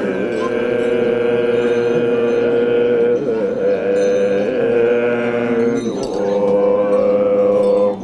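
Tibetan Buddhist monastic ritual music for the sacred dance: long, steady held notes with slight wavers, breaking and starting again about three seconds in and about six seconds in.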